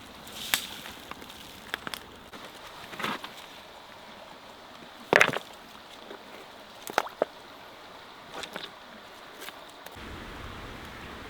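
Scattered sharp clicks and knocks, the loudest about five seconds in, over a steady hiss like running water; a low rumble comes in near the end.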